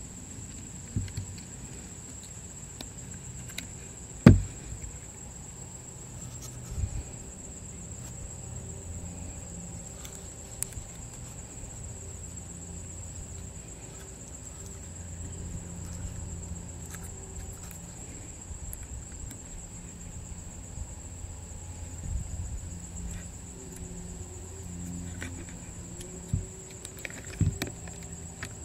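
Occasional sharp clicks and knocks of small plastic parts being handled and seated in a wooden rifle stock, the loudest about four seconds in. Behind them a continuous high, thin insect trill and a low hum.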